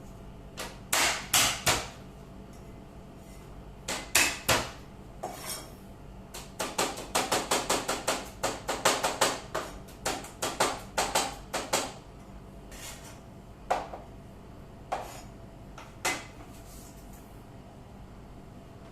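Knife chopping on a cutting board: a few sharp knocks in small groups, then a quick run of about three to four strokes a second through the middle, then single strokes about a second apart.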